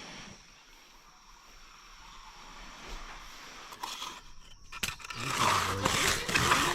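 A quiet stretch, then a sharp click about five seconds in, followed by loud, rough scraping to the end.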